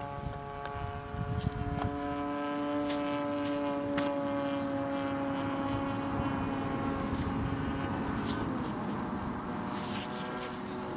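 Model airplane engine running steadily on the ground during its break-in run, with its pitch dropping a little after eight seconds. A few sharp ticks are heard over it.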